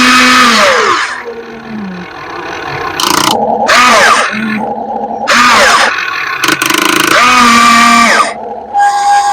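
RC hydraulic excavator's pump and motors whining in repeated bursts as the arm and bucket move, each burst's pitch rising, holding and falling away.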